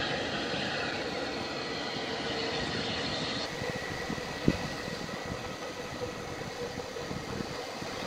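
Distant Airbus A321 jet engines running just after start-up: a steady rumble and hiss with a faint high whine. A single short knock about halfway through.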